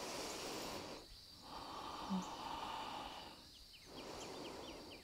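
Faint slow breathing, a person drawing long breaths in and out about a second or more each with short pauses between. A small bird chirps in a quick series near the end.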